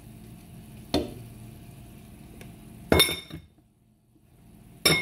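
Metallic clinks from handling an aluminium pressure cooker pot: a light tap about a second in, then two sharper clinks with a short metallic ring, one about three seconds in and one near the end.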